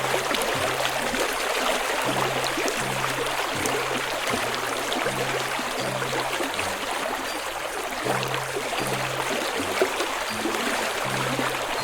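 A steady rush of flowing water, like a stream, with soft low musical notes repeating in a slow pattern underneath.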